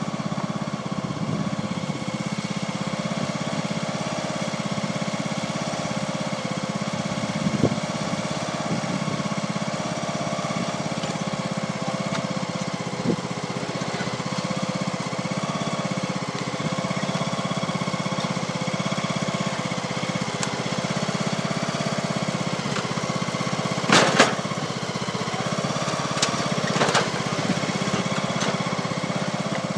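Lawn tractor engine idling steadily, with a slightly rough idle that the owner puts down to the cold. A few sharp knocks or clicks break in, the loudest about 24 seconds in and a couple more just after.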